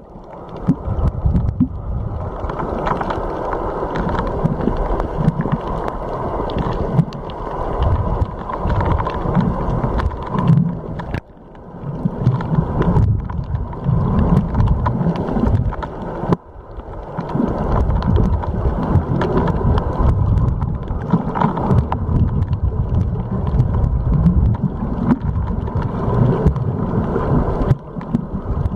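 Rumbling wash of water with wind buffeting the microphone, dropping out abruptly twice, about eleven and sixteen seconds in.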